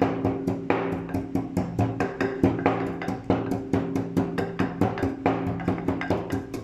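Wooden pestle pounding chilies and salt in a wooden mortar: quick, even knocks, about four or five a second, over background music with held notes.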